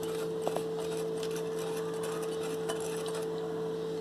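Wire whisk stirring a dry flour mix in a bowl, the wires giving soft irregular ticks and scrapes against the bowl, over a steady hum.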